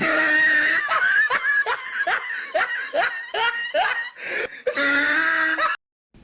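A person laughing hard, a string of short rising high-pitched bursts of about three a second, with a longer drawn-out laugh at the start and near the end, cut off suddenly.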